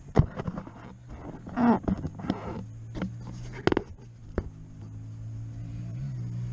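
A few sharp metal clanks and knocks as the lift arm housing is worked back into place, over a steady low engine hum that grows louder in the last couple of seconds.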